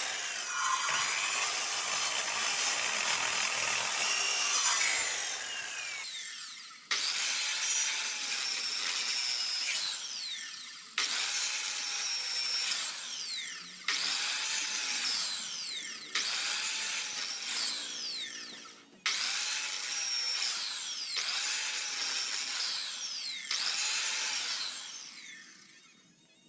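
Electric power tool working wood, heard in a series of short takes that each start abruptly and fade away over a few seconds.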